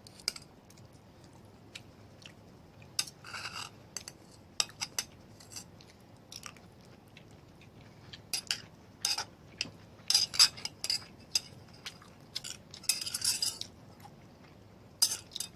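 Cutlery clinking and scraping on a plate in short, irregular clicks, with close-up chewing and mouth sounds of someone eating.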